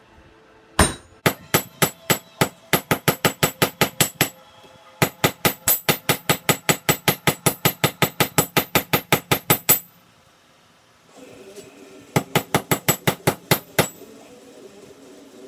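Hand hammer striking a hot railroad-spike axe bit on an anvil in fast runs of ringing blows, about four to five a second, in three bursts with short pauses between. The bit is being tapered and its edge bevel hammered in.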